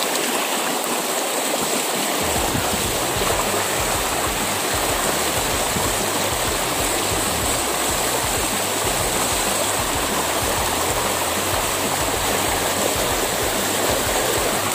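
Shallow rocky stream rushing over stones close by: a steady, unbroken rush of water.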